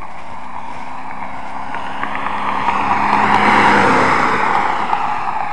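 Road vehicle going by: engine and tyre noise swell to a peak about three and a half seconds in, then ease off.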